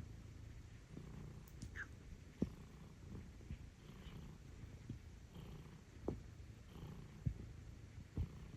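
Napping cat purring: a steady, quiet low rumble, with a few short sharp clicks scattered through it.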